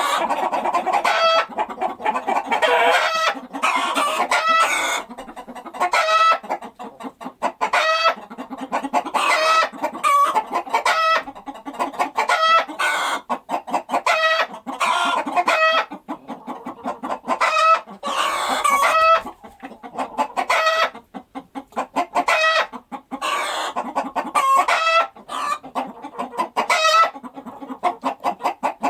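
Chickens clucking and calling continuously, many short calls overlapping, with a rooster crowing now and then.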